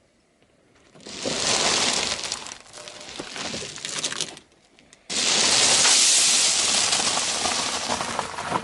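Crunching and crackling of brittle objects being crushed under a car tyre, in two long stretches: the first builds from about a second in, the second starts abruptly, louder, about halfway through.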